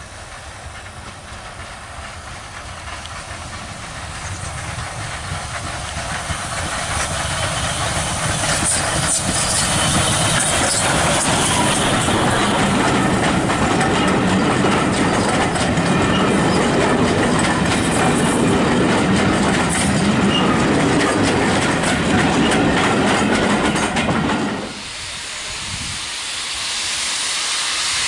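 Steam tank engine 47406, an LMS class 3F 0-6-0T, running by with a rake of coaches: the train's rumble builds as it approaches, then the carriage wheels click over the rail joints as they pass. About 24 seconds in this cuts off to a quieter steady hiss of steam from a locomotive at a platform.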